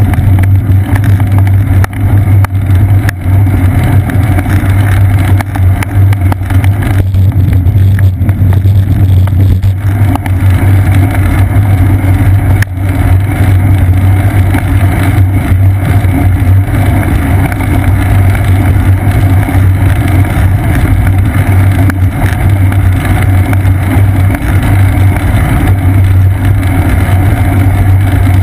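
Steady, loud rumble of wind and road vibration on the microphone of a seat-post-mounted GoPro Hero 2 while a bicycle rides along a road.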